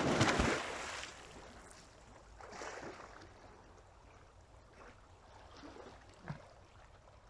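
A person dives into a swimming pond with a big splash in the first second. He then swims, with softer splashes and water sloshing every second or two.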